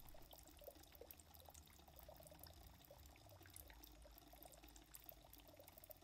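Faint water trickling and splashing at the surface of an aquarium, from the return flow of its Marineland canister filters, over a low steady hum.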